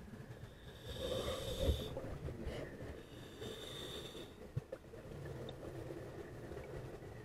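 Scuba diver breathing through a regulator, heard underwater: two hissing breaths about a second long each, over a low rumble of water and exhaled bubbles.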